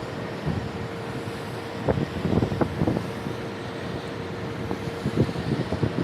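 Water spraying from a hose wand onto a rooftop air-conditioner's condenser coil: a steady hiss, with splattering crackles from about two seconds in as the stream hits the fins, over a faint steady hum.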